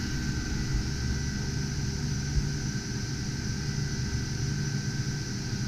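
Cooling fans of GPU crypto-mining rigs running steadily: an even whir with a low hum underneath and a faint steady high whine.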